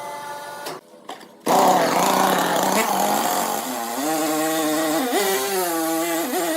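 A power saw cutting wood: a loud rasping cut starts about a second and a half in, then the saw's motor runs with a steady pitch that dips and recovers a few times as it is loaded in the cut.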